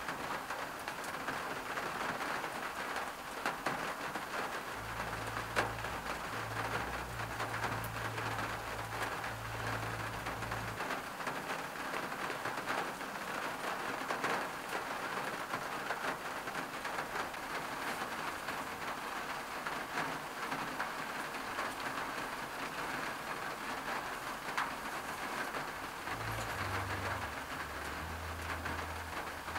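Steady rain pattering on a car's windshield and roof, heard from inside the car, with many small individual drop ticks. A low rumble joins in for several seconds about five seconds in, and again near the end.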